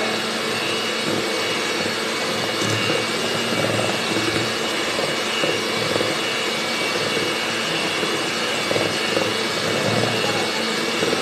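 Electric hand mixer running steadily at speed, its beaters whisking cupcake batter in a bowl.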